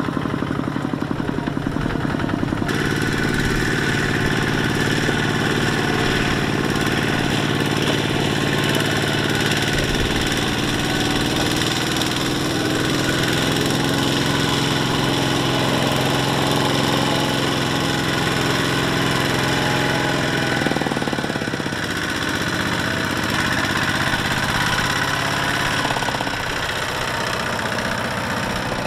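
Single-cylinder diesel engines of two-wheel walking tractors running steadily while hauling rice-laden trailers through mud. The engine note changes about three seconds in and again around twenty-one seconds.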